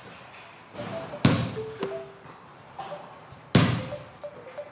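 Small rubber basketball bouncing on a wooden floor during bounce passes: two sharp bounces, about a second in and again about three and a half seconds in, each with a ringing echo, and a lighter tap between them.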